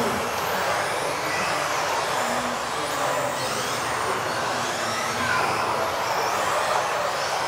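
Several electric 1:10 RC offroad buggies racing on a hall floor. Their high-pitched motor whines rise and fall as they accelerate and brake, over a steady hiss of tyres and echoing hall noise.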